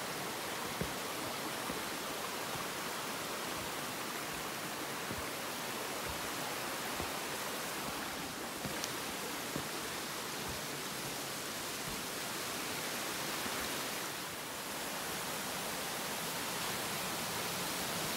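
Rushing water of a cascading mountain stream, a steady even hiss, with a few faint knocks.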